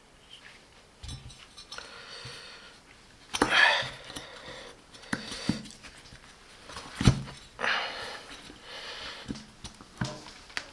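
A solid honeycomb rubber electric-scooter tire being pushed and stretched by hand onto its wheel rim: several sharp knocks and short stretches of rubbing and scraping as the rubber is forced over the rim.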